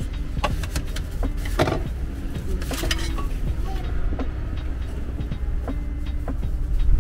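Food being dished up: a rice paddle scraping and tapping in a rice cooker and a paper food box, then chopsticks clicking as shredded chicken is laid on the rice, with the loudest knocks about one and a half and three seconds in. A steady low rumble runs underneath.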